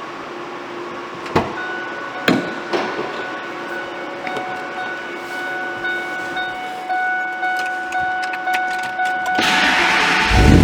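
A few sharp clicks, then a dash warning chime dinging over and over. Near the end the starter cranks and the 2002 Ford F-150 SVT Lightning's supercharged 5.4-litre V8 fires up.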